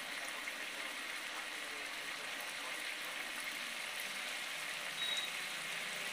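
Thick fish gravy simmering in a pan: a steady sizzling hiss with faint pops of bursting bubbles. A short high-pitched tone sounds about five seconds in.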